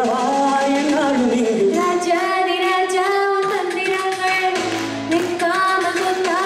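A woman singing a song into a microphone over a karaoke backing track, her voice holding and bending long notes.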